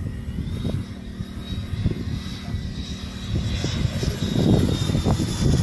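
Single turbofan engine of an L-39 Albatros jet trainer whining as it flies past overhead, growing louder in the second half.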